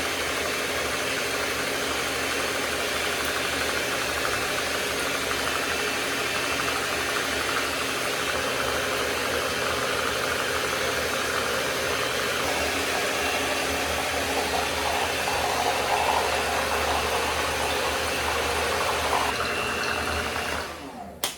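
Electric mixer running steadily at one speed, beating a pie filling.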